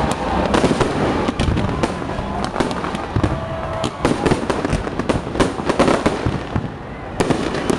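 Fireworks going off: a dense, rapid run of bangs and crackles, easing briefly near the end before another sharp bang.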